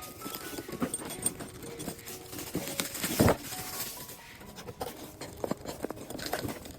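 Handling noise: irregular rustling and small clicks, with one louder knock about three seconds in, over faint background music.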